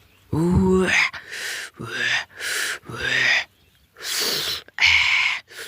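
A person's voice: a string of short wordless exclamations and breathy gasps, several rising in pitch, about six in all.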